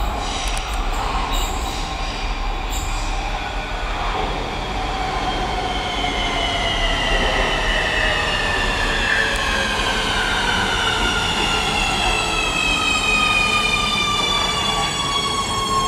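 A Nuremberg U-Bahn train arriving and braking at an underground platform. Its electric drive whines in several tones that fall steadily in pitch as it slows, over the running rumble of the wheels.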